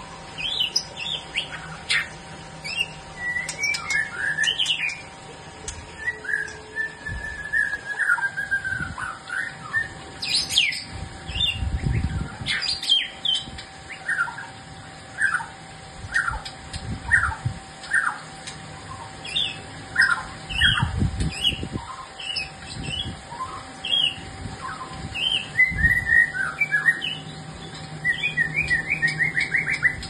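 A caged songbird singing a varied song of whistled notes, downward-sweeping chips and a quick run of notes near the end. Low thumps come every few seconds, and a faint steady hum runs underneath.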